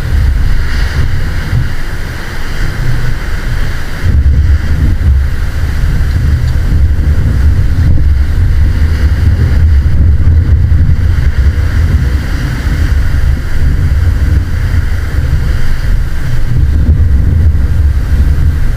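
Strong wind buffeting the microphone over the wash of surf on the beach, a heavy low rumble that rises and falls with the gusts.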